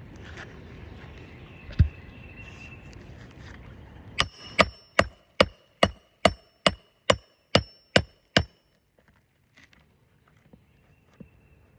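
Hammer driving a roofing nail through an asphalt shingle. There is a single knock, then a run of about eleven sharp, ringing strikes, a little over two a second, that stops a little past halfway.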